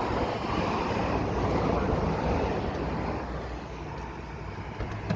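Road vehicle noise: engine rumble and tyre hiss from a car on the road, louder in the first couple of seconds and easing off near the end.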